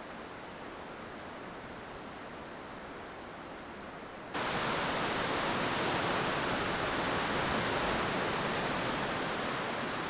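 Steady rushing outdoor noise with no distinct events. It jumps abruptly louder about four seconds in, as at a cut to another shot.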